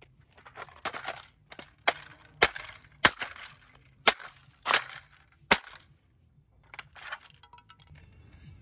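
Hard plastic toy guitar being smashed with a hammer: a series of sharp cracks, about six loud blows in the middle, with smaller crackling of breaking plastic between them and fainter clicks of pieces near the end.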